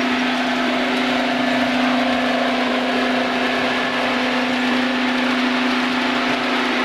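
Model train running on the layout: a steady mechanical hum with an even whirring noise under it.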